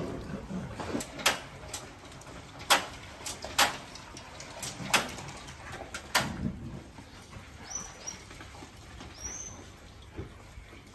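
Footsteps and puppies moving on wet brick paving: scattered sharp taps and knocks over the first six seconds, then two short high squeaks near the end.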